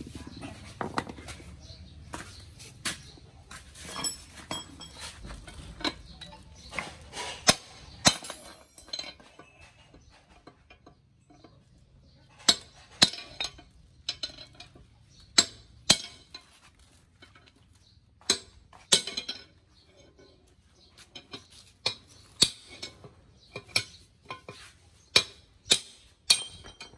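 Sharp metal-on-metal hammer strikes that ring out, irregularly, one or two a second with a short pause partway through, as steel parts are knocked out of a Mahindra Bolero front differential housing, where old bearings and seals are being removed.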